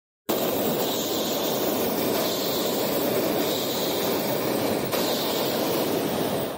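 Hot air balloon's propane burner firing in one long continuous burn: a loud, steady rushing noise that starts abruptly and holds for about six seconds.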